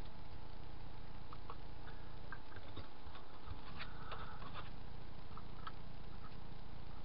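Light scattered clicks and taps of small styrene sheet pieces being handled and pressed onto a styrene bracket, bunched toward the middle, over a steady low hum.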